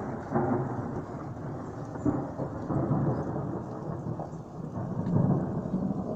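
Thunder rumbling on and on, swelling and ebbing and loudest about five seconds in, with rain falling.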